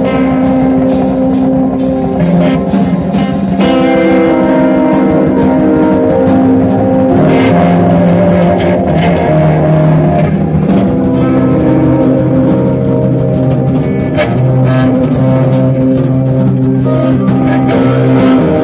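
Live instrumental jazz-rock band playing loud: drum kit with a steady run of cymbal and drum hits, electric bass and electric guitar, over long held keyboard notes.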